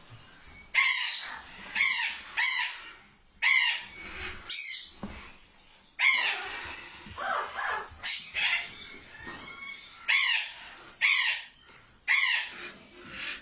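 A bird giving a series of harsh squawking calls, about a dozen short calls spaced roughly a second apart, with one longer call about halfway through.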